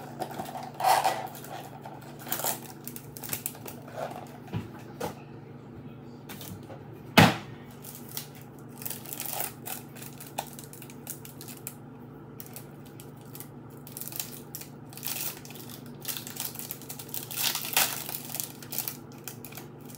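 Crinkling and crackling of a foil chip packet being worked open by hand, in irregular short rustles with one sharp click about seven seconds in and a longer stretch of crinkling near the end, over a steady low hum.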